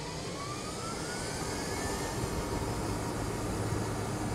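Electric golf cart accelerating at full throttle under a heavy load of about 180 amps: the drive motor's whine rises in pitch over the first couple of seconds, while rumble and road noise build as speed climbs.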